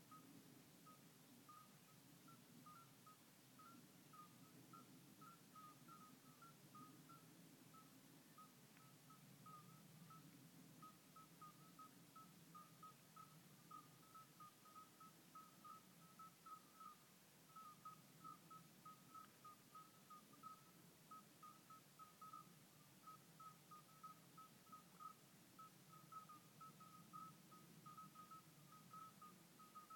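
Faint, continuous chirping: short high notes on a single pitch, several a second, over a low hum.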